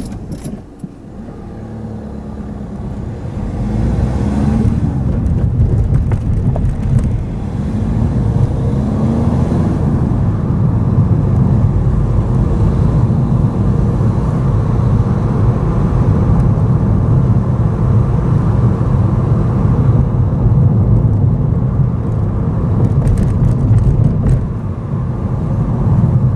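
Car pulling away from a standstill and driving on: engine and tyre rumble building over the first few seconds, then running steadily, with the engine note rising a couple of times in the first ten seconds as it gathers speed.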